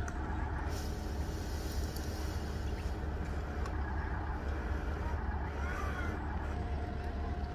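Huina radio-controlled dump truck running as it creeps forward with its tipper bed raised, a steady low drone.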